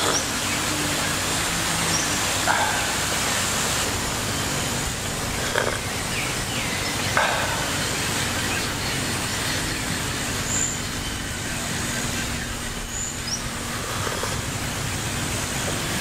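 Steady rushing of a river flowing over rocks, with a couple of short high chirps about two thirds of the way in.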